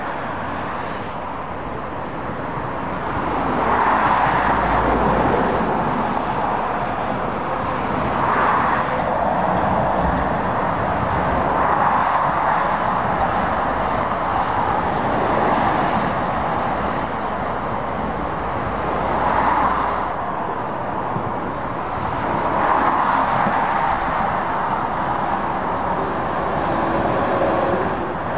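Traffic on a dual carriageway: steady tyre and engine noise from passing lorries and cars, swelling as each vehicle goes by, with a low rumble while heavy trucks pass.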